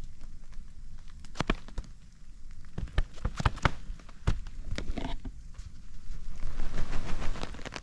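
Rain on a tarp: irregular drops tapping the wet stretched fabric, over a hiss of rain that swells near the end.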